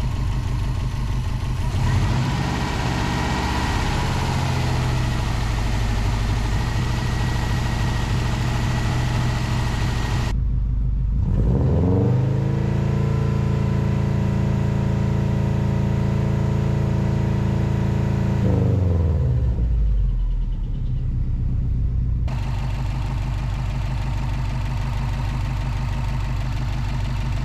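Subaru WRX's turbocharged flat-four running with upper engine cleaner being drawn through the intake. About eleven seconds in, the revs climb and are held up for about six seconds, then drop back to a steady idle; the revs are kept up because the engine stumbles and nearly stalls on the cleaner.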